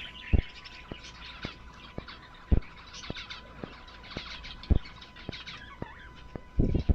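Small cage birds chirping and twittering. Sharp knocks cut through at times: three strong ones about two seconds apart, then a quick cluster near the end.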